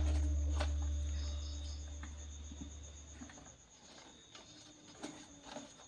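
Hands handling the wiring and plastic body of an opened rice cooker: a low rumble for the first three seconds that fades away, then a few light clicks. Crickets chirr steadily in the background.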